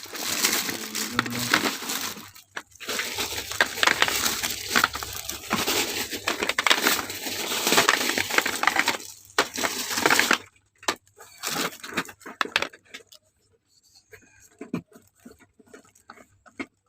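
Packaging crinkling and rustling as goods are unpacked by hand, dense and continuous for about ten seconds, then only a few light clicks and taps.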